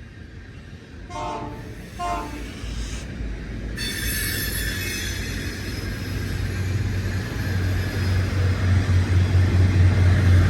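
Two short blasts of a diesel locomotive's air horn. From about four seconds in, the train approaches: a low engine drone and rail noise build steadily louder.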